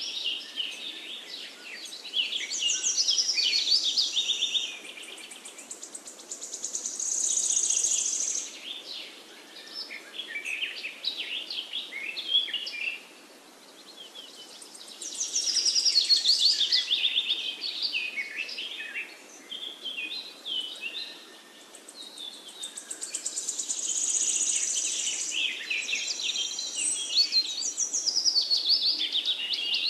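A dense chorus of birdsong, many chirps and trills overlapping, swelling and fading several times.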